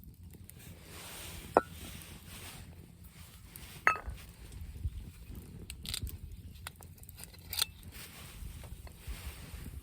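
A few sharp, separate clinks and knocks, the first two with a short ring, over a steady low rumble of wind on the microphone.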